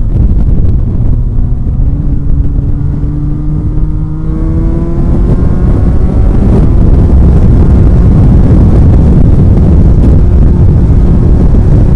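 Benelli 302R's 300 cc parallel-twin engine under hard acceleration, its note climbing steadily for a few seconds. Heavy wind buffeting on the microphone takes over from about six and a half seconds in as speed builds.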